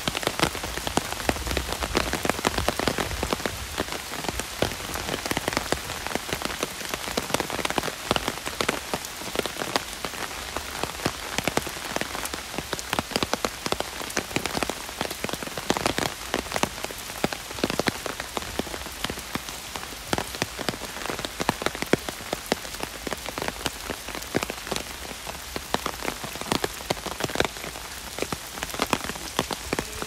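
Heavy rain drumming on an umbrella: a steady wash of rain with many sharp, close drop strikes on the canopy.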